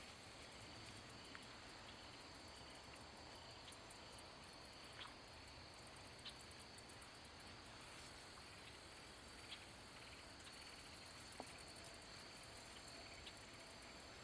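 Quiet outdoor ambience: a faint, steady, high-pitched trilling of insects such as crickets, with a few brief faint chirps and clicks scattered through.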